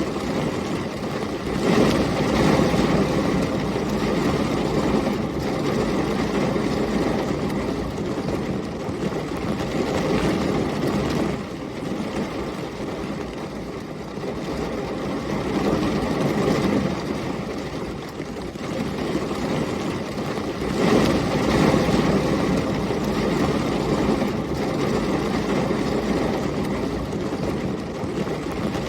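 Heavy rain with storm wind and thunder as a continuous rumbling wash, swelling louder about two seconds in, again around the middle, and once more about two thirds of the way through.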